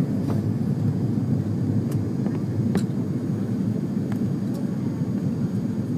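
Steady cabin noise inside an Airbus A330 airliner in flight: an even rumble of engines and airflow, with a few faint clicks.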